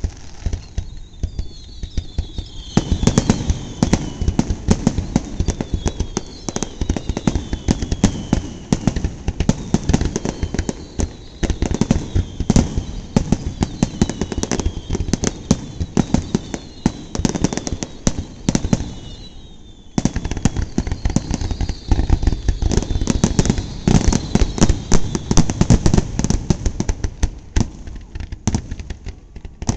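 Fireworks display: a dense, continuous run of bangs and crackling pops, with repeated whistles falling in pitch over them. It drops away briefly about twenty seconds in, then resumes just as dense.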